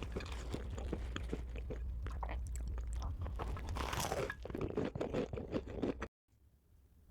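Close-miked crunchy chewing: dense crisp crackles and bites of something brittle, stopping abruptly about six seconds in.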